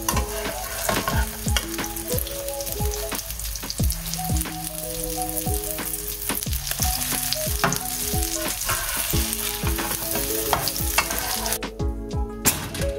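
Egg omelette sizzling in oil in a non-stick frying pan as it is worked and folded with a metal turner. Background music with a steady beat plays under it. The sizzle cuts off about three-quarters of a second before the end.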